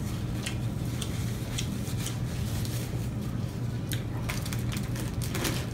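Chewing a mouthful of burger, with scattered short wet clicks, over a steady low hum.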